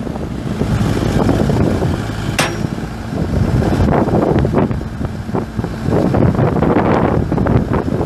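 Diesel engine of a Case 580M Series II backhoe running steadily, with wind buffeting the microphone. A sharp knock comes about two and a half seconds in, and a few fainter knocks follow later.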